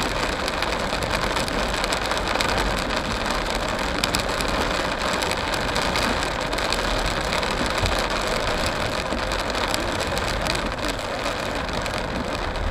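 Steady noise of a car driving through a heavy rainstorm, heard from inside the cabin: rain on the windscreen and body and tyres on the wet road, with no separate events standing out.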